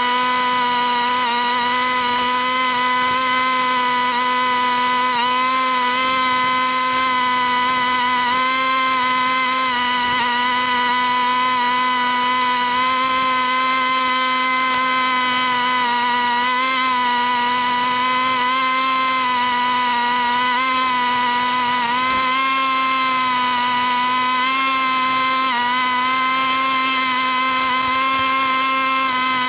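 Lawn mower running steadily, a high buzzing whine whose pitch wavers slightly.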